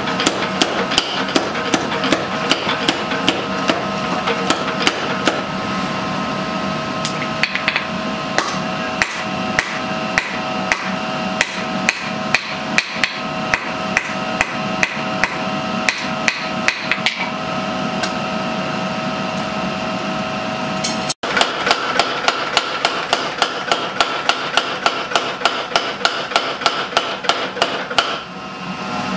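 Steady hammer blows on a red-hot white-steel knife blank against an anvil, about two strikes a second, each with a bright metallic ring. The rhythm breaks once with a brief gap about two-thirds of the way through, then picks up again.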